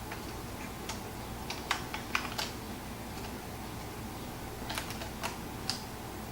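Sparse light clicks and taps of a laptop's memory stick and open base being handled, in small clusters about a second in, around two seconds in and again near five seconds, over a steady faint hum.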